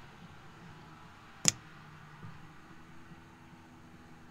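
Autoterm Air 2D diesel heater's dosing fuel pump giving one sharp click about a second and a half in, a single stroke of its slow pulsing. It is priming the still-empty fuel line with diesel on the heater's first start.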